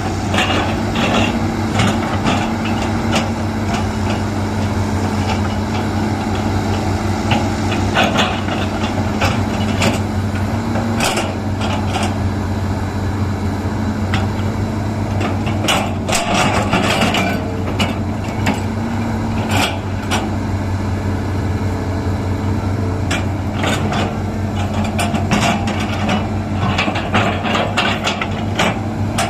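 Hydraulic excavator's diesel engine running steadily while digging a ditch, with frequent irregular clanks and knocks from the machine's working gear.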